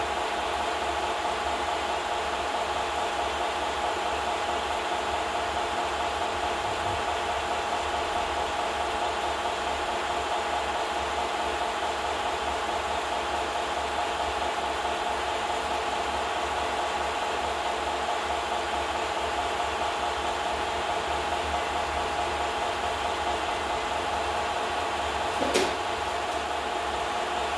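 Steady whirr and hiss of a film projector running, with a single sharp click near the end.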